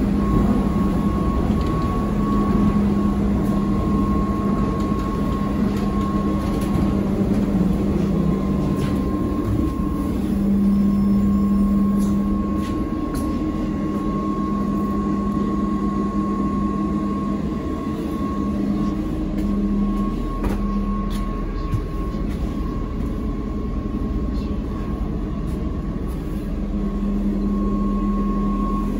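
ZiU-682V trolleybus running, heard from inside the cabin: a steady hum and a higher steady whine over road rumble, with a few faint clicks and rattles.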